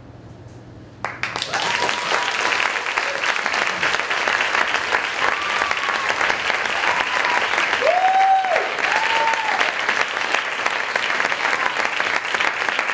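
Theatre audience breaking into applause about a second in, after a moment of quiet, with several voices cheering and whooping over the clapping.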